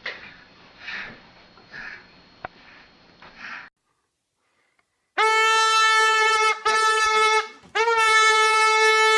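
Soft breathy puffs, about one a second, then a silence. After it come three long, loud horn-like notes held at one steady pitch, like a wind instrument or toy horn being blown.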